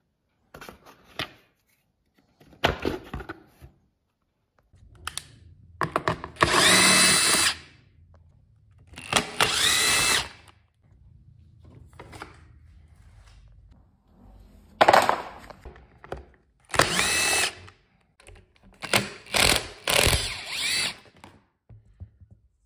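Metabo cordless drill-driver backing out the bolts that hold a dirt bike's plastic body panels, in several short runs, each whining up to speed. Clicks and knocks from handling the panels come in between, mostly in the first few seconds.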